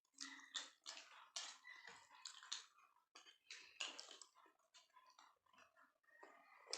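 Faint, close-up chewing of momo dumplings: wet mouth smacks and clicks, a few each second, in an irregular rhythm.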